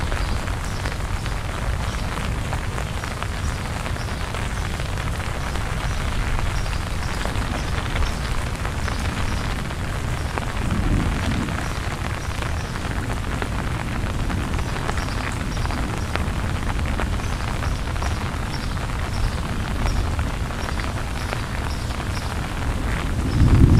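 Steady rain with a low rumble underneath that swells briefly about eleven seconds in and again near the end. Faint high chirps repeat about twice a second through it.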